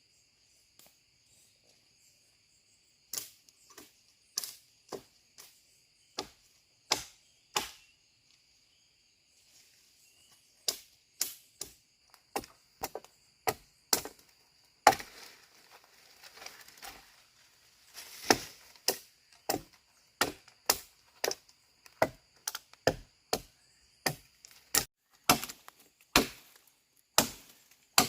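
A blade or tool chopping into wood over and over: sharp single strikes that begin about three seconds in and quicken to about two a second. Insects shrill steadily in the background.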